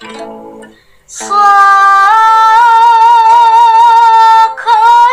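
A woman singing a Sundanese song solo in long, loud held notes with wavering vocal ornaments. She comes in about a second in, after a plucked guitar chord fades, and breaks briefly for breath near the end.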